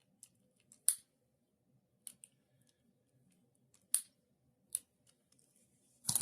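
A few sharp, irregular snips and clicks from small hand tools working thin wire, with one louder click near the end.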